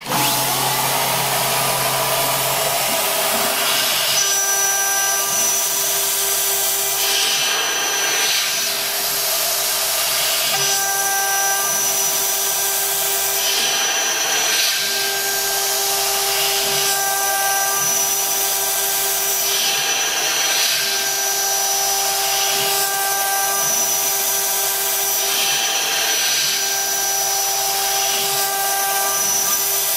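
Air-cooled 2.2 kW high-frequency spindle at about 24,000 rpm driving a 6 mm two-flute roughing end mill through 5083 aluminium on a 2D adaptive toolpath. A steady high whine runs over a constant hiss, and a pitched cutting tone drops in and out every few seconds as the tool engages and leaves the cut.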